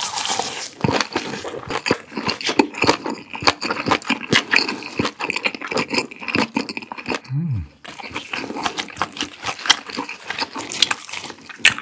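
Close-miked chewing of a leafy ssam wrap of smoked pork belly and spicy webfoot octopus: a dense run of wet crunches, clicks and mouth smacks. A brief low hum from the eater comes a little past halfway.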